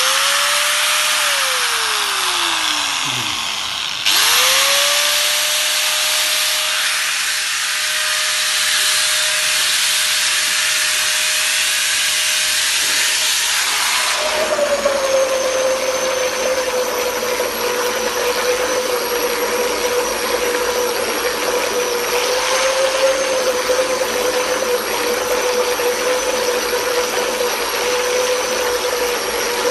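A corded DYK electric power tool's motor is switched off and winds down. It is switched on again about four seconds in and whines quickly up to a steady speed. About ten seconds later it is plunged into a bucket of water and keeps running submerged, its whine wavering slightly, with the water churning and splashing around it.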